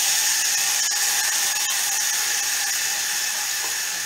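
White wine poured into a hot, oiled pan, hissing and sizzling loudly as it hits the hot oil. The hiss is steady with a fine crackle and eases slightly.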